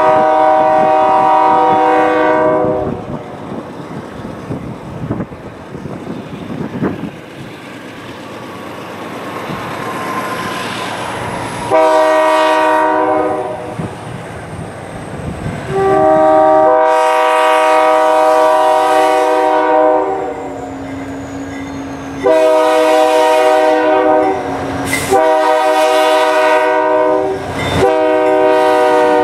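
GE C40-8 diesel locomotive sounding its air horn in a series of about six blasts, most of them long, with one short blast about twelve seconds in. Between the blasts the diesel engines rumble and the wheels run on the rails as the locomotives come by.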